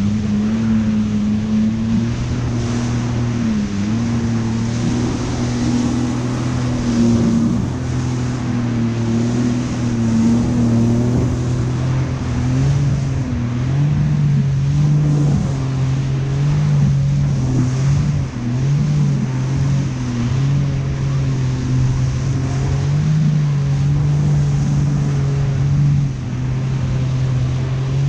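Yamaha VX Deluxe WaveRunner's engine running steadily while underway on choppy ocean water, its pitch dipping and then rising a little partway through, with wind and water spray rushing past.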